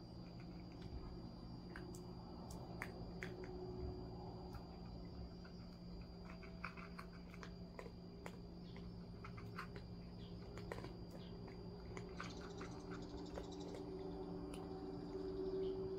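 Two cats eating cat food from a bowl: faint, scattered crunching clicks of chewing, over a steady low hum.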